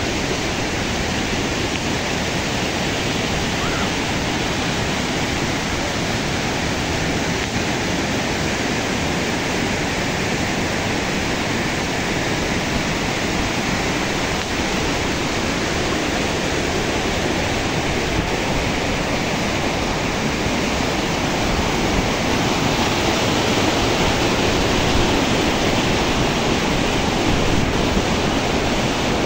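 Mountain stream rushing and cascading over rocks, a loud, steady roar of white water that grows a little louder in the second half.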